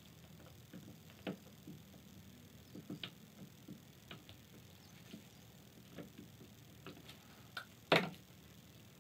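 Scattered light clicks and knocks of chair parts and tools being handled during a woodworking glue-up, the loudest a sharp knock about eight seconds in.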